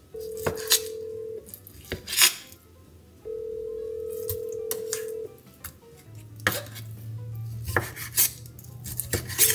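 Chef's knife chopping raw chicken on a wooden cutting board, a series of sharp knocks. A phone on speaker plays a ringback tone while a call waits to be answered: a steady beep lasting one to two seconds, heard twice and coming back about every six seconds. A low steady hum joins about six seconds in.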